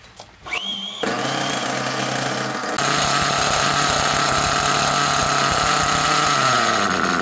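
Small two-stroke nitro engine of an HPI Trophy 4.6 RC buggy: a brief rising whine as it is spun over, the engine catching about a second in, then running steadily and getting louder about three seconds in. Near the end its fuel line is pinched, which leans out the mixture to stall it.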